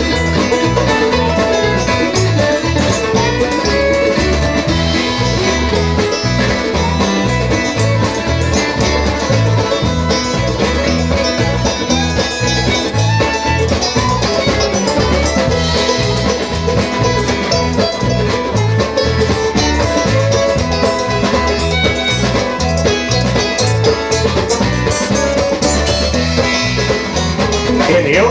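A live bluegrass band playing an instrumental break, with banjo and acoustic guitar picking and a fiddle, over an even low bass pulse.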